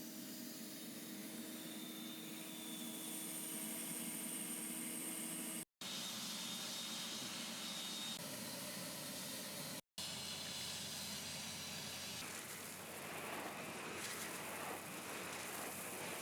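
Steady hissing background noise with a few faint steady tones, cut off briefly twice.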